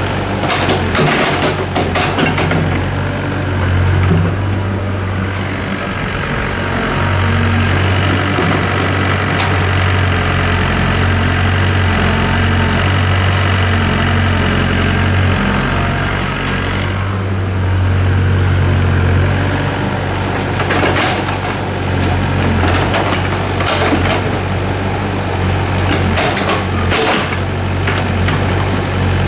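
Doosan DX55W wheeled excavator's diesel engine running steadily under load as it digs and loads soil. Clods of soil clatter and thud into a steel dump-truck bed near the start and again several times toward the end.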